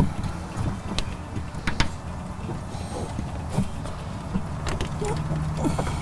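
Scattered sharp clicks and handling noise as an ABS sensor wire and its plastic connector are worked into place by hand, over a steady low hum.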